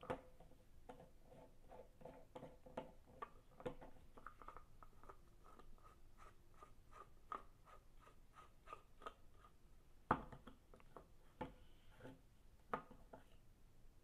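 Ezy Crush pill crusher, a plastic screw-down crusher, being unscrewed by hand: quiet, irregular small clicks and scrapes from its plastic threads, with a louder knock about ten seconds in and a few more after it.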